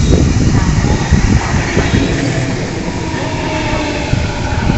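Waratah A-set electric multiple unit running into the platform close by: a loud rumble with rapid clatter of wheels on the rails, and a steady whine coming in during the second half.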